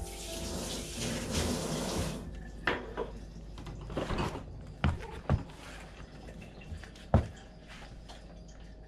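Water running in a steady rush for about two seconds, then stopping. After that come a handful of sharp knocks and clatters, the loudest near the end.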